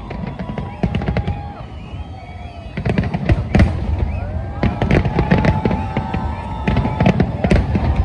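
A fireworks display: many sharp bangs and crackles in quick succession, growing denser about three seconds in, with music playing underneath.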